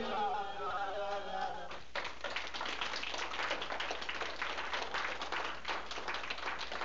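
The last held notes of a song end about two seconds in, and an audience breaks into clapping and applause.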